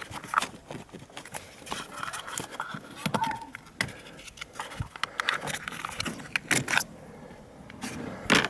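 Irregular metallic clicks and clinks of hand tools and battery hardware being handled in a car's engine bay.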